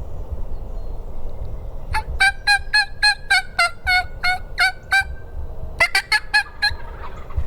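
Turkey yelps: a run of about a dozen evenly spaced yelps at roughly four a second, then a shorter, quicker run of about five near the end.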